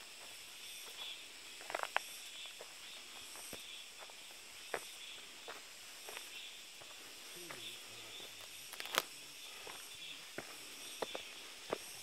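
Footsteps on a dirt forest path: scattered irregular taps and scuffs, the sharpest ones about two seconds in and about nine seconds in, over a steady high hiss.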